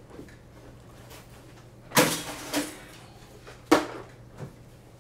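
Two sharp plastic clatters from handling a small drone's plastic ducted frame on a work mat, the first about two seconds in with a brief rattle after it, the second a single crisp click about a second and a half later.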